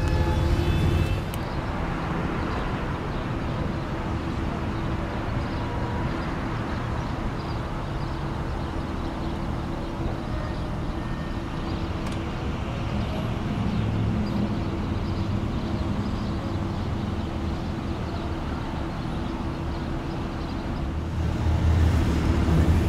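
Power-operated fabric soft top of an Aston Martin Virage Volante raising, its drive giving a steady hum over a low rumble.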